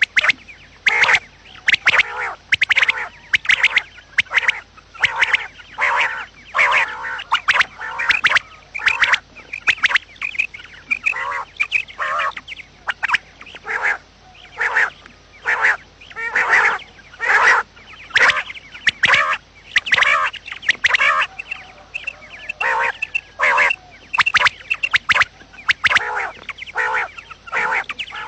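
Quail (batair) calling: short notes repeated a couple of times a second in quick runs, with brief pauses between runs. It is a morning calling sound, the kind played as a lure to draw quail in.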